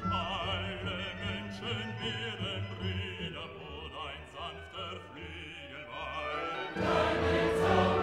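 Background music: classical music with an operatic singing voice wavering in vibrato. About seven seconds in, a louder, fuller passage with choir comes in.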